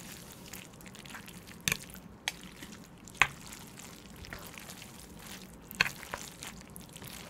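Wet, sticky sounds of saucy Chapagetti noodles being stirred and lifted in the bowl, with a handful of sharp clicks of utensils knocking against the dish.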